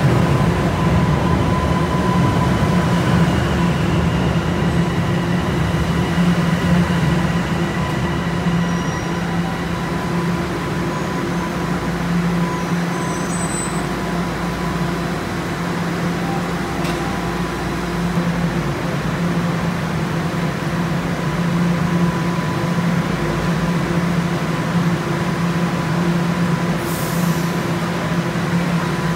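TTC subway train at a station platform: a steady low hum from its running equipment with a faint high whine, as it comes to a stop and stands. A short high hiss about 27 seconds in.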